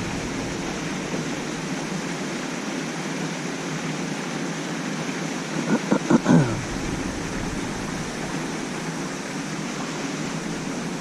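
Steady outdoor rushing noise with no clear pitch, with a brief burst of clicks and a short falling sound about six seconds in.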